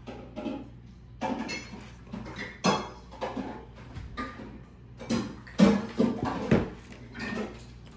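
Cutlery clinking and scraping against dishes at a meal: irregular knocks and scrapes of forks and spoons on bowls, with the loudest clatters a little past halfway.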